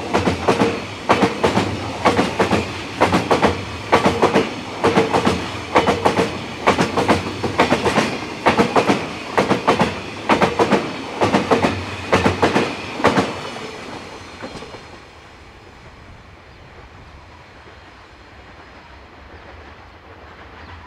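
Empty flatbed freight wagons rolling past close by, their wheels clattering over the rail joints in a clickety-clack, in groups about once a second, with a steady hum under it. About two thirds of the way through the clatter fades, leaving a low rumble.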